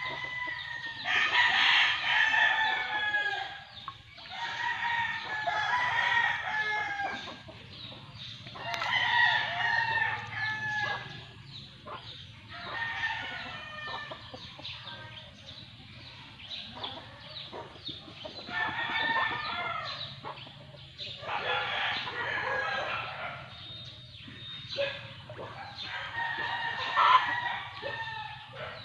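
Roosters crowing over and over, a drawn-out crow every few seconds, about seven in all.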